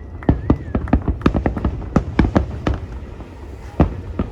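Fireworks display: many bangs and crackling reports in quick, irregular succession over a low rumble, thinning out for about a second past the middle before picking up again. A faint wavering whistle runs in the first second.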